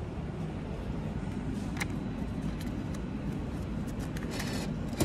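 Steady low rumble, with a single click about two seconds in. Near the end there is a short whirr as the ticket machine's banknote acceptor draws in a paper note.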